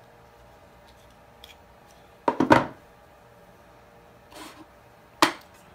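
Handling noises from craft pieces and tools on a tabletop: faint clicks, a louder scraping clatter about two and a half seconds in, a soft rustle, then a single sharp tap near the end.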